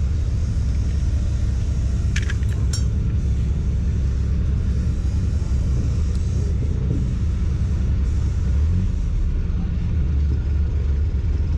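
Steady low rumble with a few sharp clicks about two to three seconds in.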